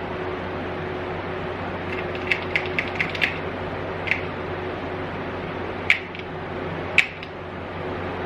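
Small salvaged pinball machine parts clicking and knocking as they are handled: a quick run of about six light clicks, then a few single sharper clicks, over a steady background hum.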